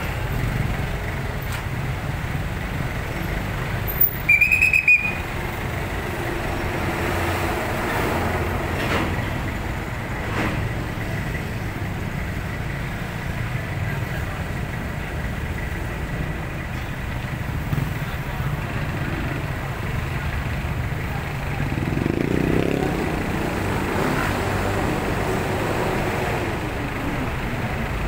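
Steady rumble of slow, heavy road traffic: jeepney, van and motorcycle engines idling and pulling away. About four seconds in, a traffic enforcer's whistle gives one short, shrill trill. Around two thirds of the way through, a vehicle's engine revs up as it accelerates past.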